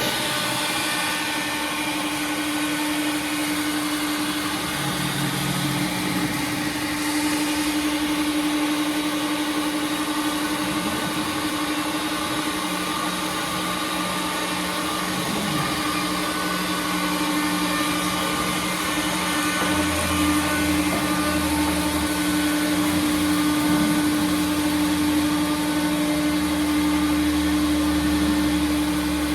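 CNC router running as it cuts an HDPE sheet held down on a vacuum table: a steady machine hum with one strong constant tone, and lower tones joining about twelve and twenty seconds in.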